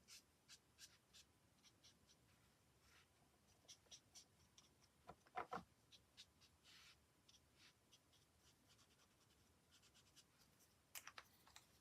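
Faint, intermittent scratching and light tapping of a colouring tool working over card stock, with a few slightly louder clicks.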